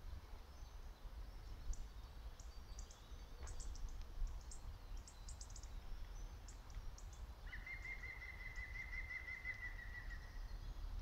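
Northern goshawk calling: one long rapid chattering series of notes that starts about two-thirds of the way in and lasts about three seconds. Before it, scattered short high chirps from small birds.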